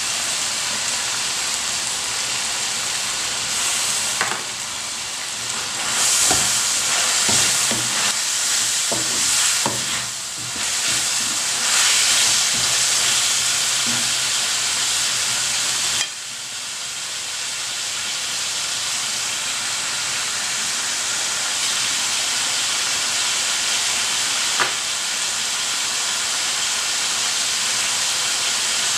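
Chicken and liver sizzling in a nonstick wok, a steady frying hiss. For the first half a wooden spatula stirs the pieces, scraping and tapping the pan.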